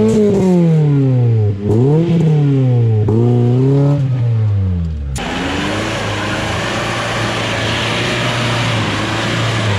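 Off-road 4x4 engines revving under load on a muddy climb. First, a small soft-top 4x4's engine revs up and down several times. About five seconds in, the sound switches abruptly to a modified jeep's engine running more steadily under a loud rushing noise.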